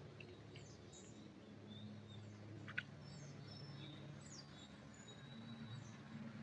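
Faint small birds chirping and calling in short high notes and quick sweeps, over a steady low hum. One sharp click comes just under three seconds in.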